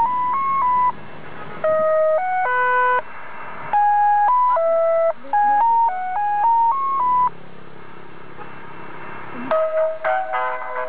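Mobile ice cream cart's horn loudspeaker playing an electronic jingle in plain beeping single notes, phrase by phrase with short pauses. About nine and a half seconds in, a fuller tune with several notes at once starts.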